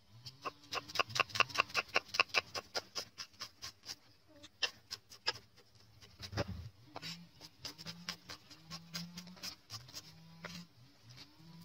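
Cleaver chopping garlic cloves on a thick wooden chopping block: a fast, even run of sharp knocks, about six a second, for the first few seconds, then slower, scattered chops. A single dull low thump comes about six and a half seconds in.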